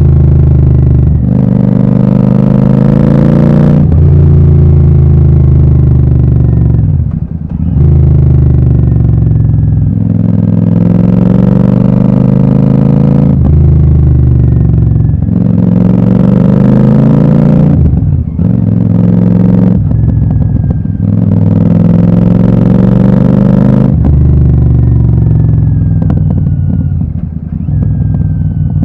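Royal Enfield Super Meteor 650's parallel-twin engine through an aftermarket Gursewak exhaust with its dB killers removed, revving up and dropping back sharply about five times. It settles to lower, rougher running near the end.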